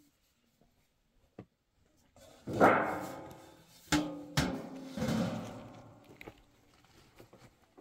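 A large thin stainless-steel tray being lifted and handled, its sheet metal wobbling and ringing, with a couple of sharp knocks; loudest about two and a half seconds in, then dying away.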